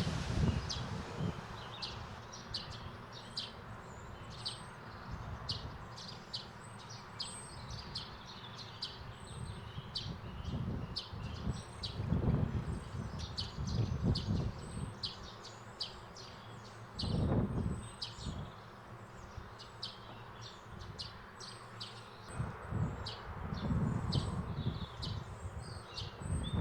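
Small birds chirping steadily, many short high calls a second. Now and then there is a low rushing swell.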